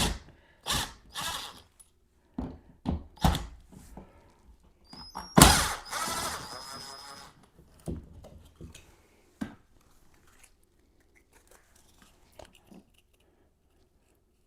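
Hands-on work at an outlet box in drywall: a run of knocks and clicks from handling tools and parts. About five seconds in there is one loud metallic clatter that rings briefly, then a few faint ticks.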